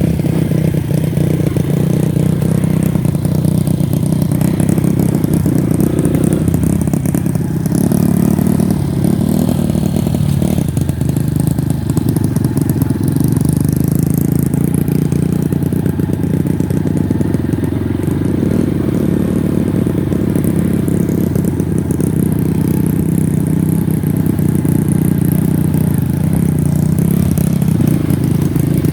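Honda Win motorcycle engine running steadily under way, with clattering on a rough track.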